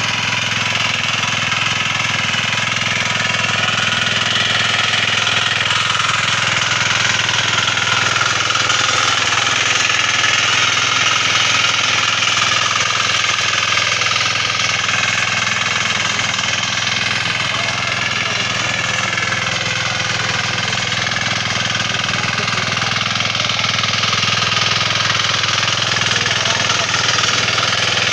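Diesel engine of a Sparkline walk-behind power tiller running steadily under load as its rotary tines churn dry soil.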